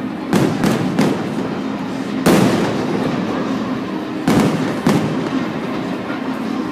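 Fireworks shells bursting: three quick bangs in the first second, the loudest bang a little past two seconds in, then two more about half a second apart past four seconds, each followed by a short rumbling tail.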